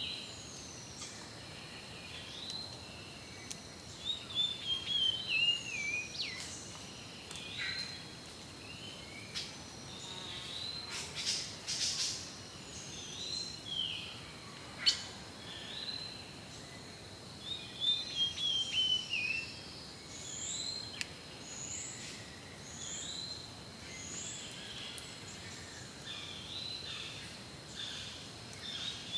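Several birds calling: short up-slurred whistles repeated every second or two, and twice a descending warbling trill, over a steady high insect drone and a few sharp clicks.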